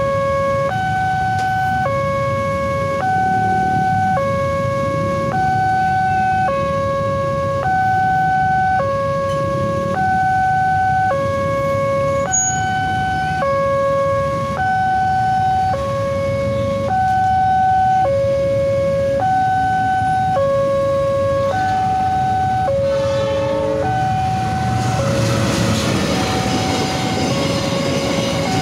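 Railway level-crossing warning alarm sounding: two electronic tones alternating, each held about a second, over and over. Near the end an empty cement freight train begins rumbling past the crossing, rising over the alarm.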